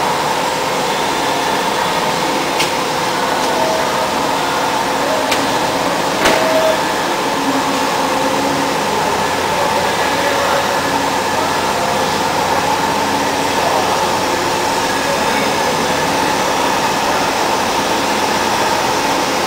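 CNC drilling center running: a steady mechanical whir with a steady tone, broken by a few sharp clicks, the loudest about six seconds in.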